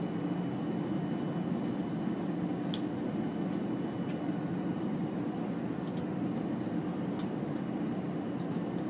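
Steady airliner cabin noise, a low even rumble, with a few faint clicks.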